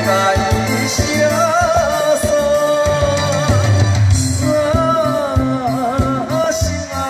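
A man singing a Taiwanese Hokkien ballad into a handheld microphone, his voice amplified over a karaoke backing track with a steady beat and bass line; the held notes waver with vibrato.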